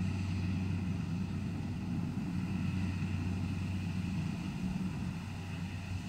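Kubota DC-70 rice combine harvester's diesel engine running with a steady low drone.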